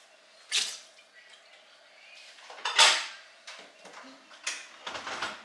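Kitchen clatter of dishes and utensils being handled at the counter: several separate knocks and scrapes, the longest and loudest about three seconds in.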